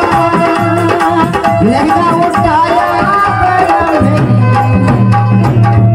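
Indian folk dance music: steady drumming with gliding low drum tones under a melody line.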